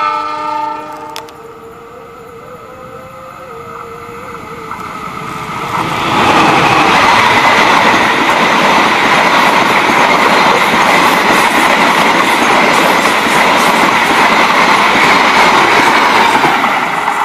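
A CC206 diesel-electric locomotive's horn sounds once at the start, a chord of several tones lasting about a second. Then the train of stainless-steel passenger coaches passes close by: its wheel-and-rail rumble grows over the next few seconds and holds loud and steady from about six seconds in, with the wheels clicking over rail joints.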